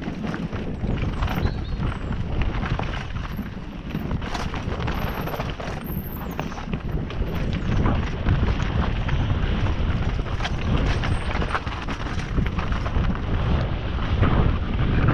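Mountain bike rolling over a rocky dirt trail: tyres crunching on stones and the bike clattering and rattling in quick, uneven clicks, over a low rumble of wind on the camera microphone.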